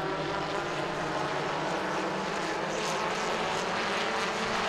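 A field of Super Truck race trucks running at speed around the oval, their engines blending into one steady drone.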